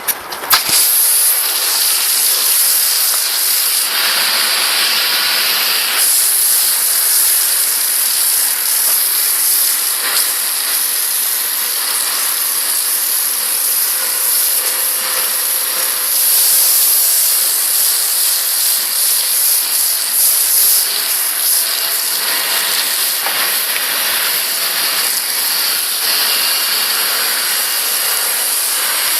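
Foam lance on a 110-bar Kärcher pressure washer spraying snow foam: a loud, steady hiss that starts about half a second in and holds without a break.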